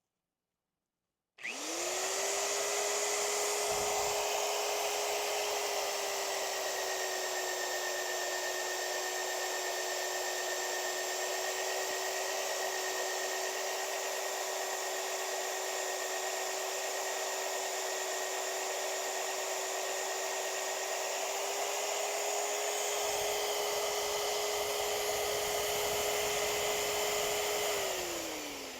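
Electric power tool motor spinning up quickly and running with a steady whine for about 26 seconds. Its pitch sags slightly in the middle, as under load, and recovers, and near the end it is switched off and winds down with a falling tone.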